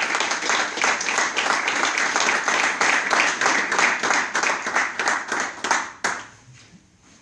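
Small audience applauding: many pairs of hands clapping steadily, dying away about six seconds in.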